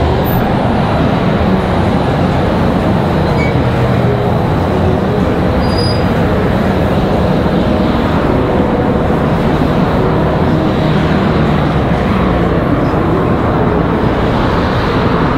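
Steady road traffic noise from cars driving past on a busy multi-lane boulevard, a continuous rumble and hiss.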